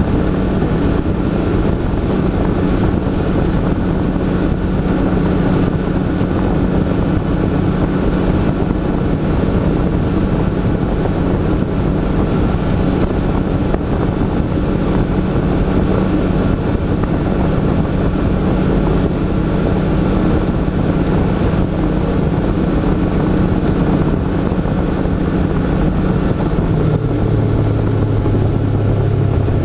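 Vehicle engine running steadily while driving, a constant drone that drops in pitch about 27 seconds in as the engine slows, with wind noise.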